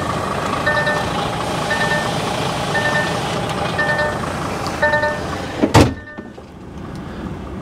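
DAF truck beeper sounding short electronic beeps about once a second over the running engine, the pattern of a reversing alarm. About six seconds in there is one heavy clunk, after which the engine noise drops.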